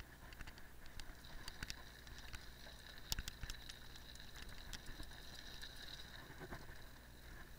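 Cyclocross bike riding along a dirt and gravel path: tyres rolling, with many scattered clicks and rattles from the bike and a faint high steady whir through most of it.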